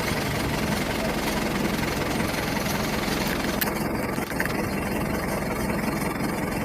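Boat engine idling steadily, a low, even running sound with a constant hum.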